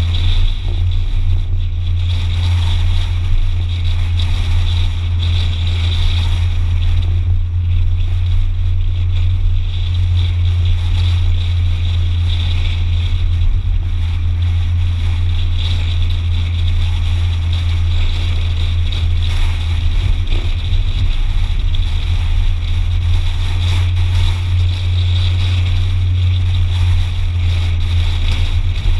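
Car driving along a street: steady low engine and road rumble with an even hiss higher up, heard from a camera on the car itself.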